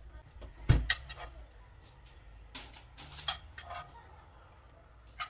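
Kitchen utensils and dishes clinking and knocking while cooked chicken pieces are put onto a shawarma flatbread, with one sharp, heavier knock under a second in and a few lighter clicks after it.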